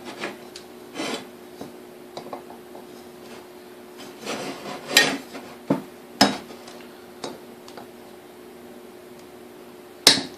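Diagonal cutters clicking, clinking and scraping against the hinge pins on a KitchenAid A9 coffee mill's housing while trying to work out pins that stay stuck. There are sharp clicks about five to six seconds in and again near the end, and a scraping stretch just before them. A steady low hum runs underneath.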